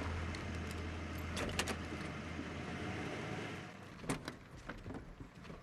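Car engine running steadily, then switched off a little under four seconds in, with a few sharp clicks and knocks like car-door handling around it.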